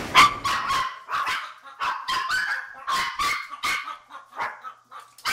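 Maltese dogs barking at someone arriving at the door: a rapid string of short, high-pitched barks, about three a second.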